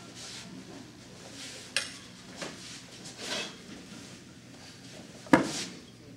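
A pair of kama swung through a kata: soft swishes of the weapons and uniform cutting the air, a sharp click about two seconds in, and a loud sharp clack near the end.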